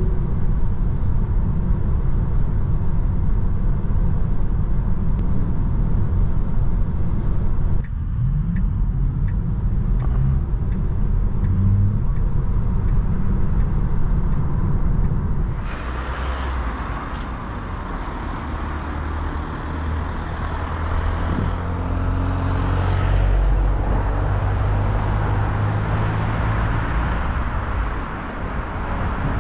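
Road and tyre noise heard inside the cabin of a Tesla Model 3 Long Range electric car on the move, with no engine sound. A deep steady rumble fills the first half; from about halfway it gives way to a lighter, hissier road noise.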